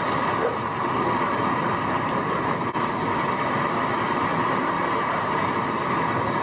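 Steady mechanical noise at an even level, with a strong midrange band and no break.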